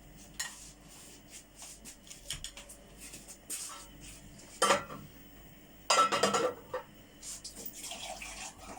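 Dishes and cutlery clinking and clattering as a table is set, with short knocks throughout and two louder clatters about halfway through.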